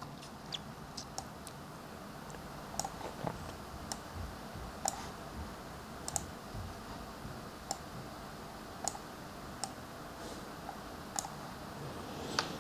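Sparse, sharp clicks of a laptop's keys and mouse buttons, irregular and roughly one a second, over quiet room tone, as points in a drawing are selected and deleted.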